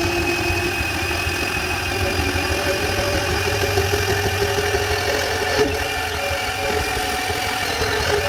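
Milwaukee 12-volt cordless bandsaw (2429-20) running steadily as its blade cuts through schedule 40 pipe, stopping abruptly near the end as the cut finishes.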